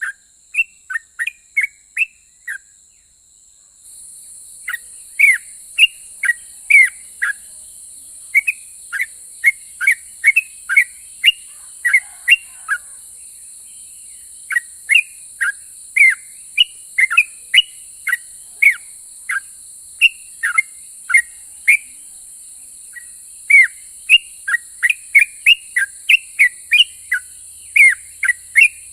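Yellow-vented bulbul singing: quick runs of short, bright, downward-slurred whistled notes, broken by brief pauses between phrases. A steady faint hiss comes in about four seconds in.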